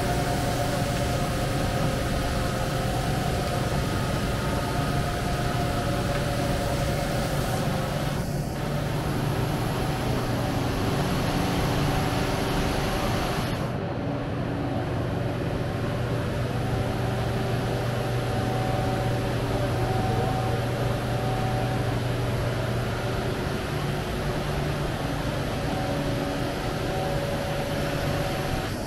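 2006 PROTH PSPGP 1522 AHR CNC gantry surface grinder running, a steady machine hum with several steady tones over a broad hiss as the wheel grinds a plate under flowing coolant. About halfway through, the high part of the hiss drops away.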